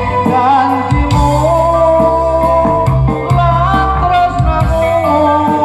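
Loud music played through a large street sound system: a wavering lead melody over a bass line that steps between notes, with regular drum hits.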